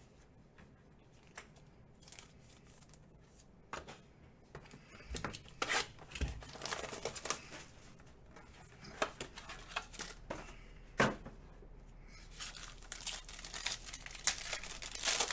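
Trading card packs being torn open: wrappers tearing and crinkling, with light clicks and rustles of cards and packaging being handled, starting about four seconds in.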